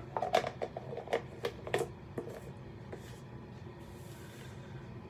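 Quick irregular clicks and knocks of shaving products being picked up and moved about on a counter, mostly in the first two seconds, then quiet room tone.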